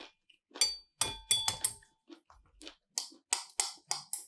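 Utensils knocking and clinking against a dish: a few sharp knocks with brief ringing in the first half, then a quicker run of short clicks near the end.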